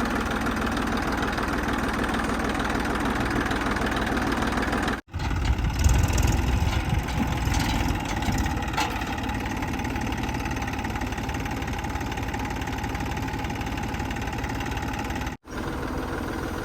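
JCB 3DX backhoe loader's diesel engine running steadily while it works, with a louder low rumble and a few knocks for a couple of seconds after a brief dropout about five seconds in, and another brief dropout near the end.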